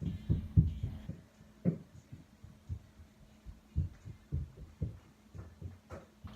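Irregular low thuds of feet and hands landing on the floor during burpees, several close together at first and sparser later, over a steady low hum.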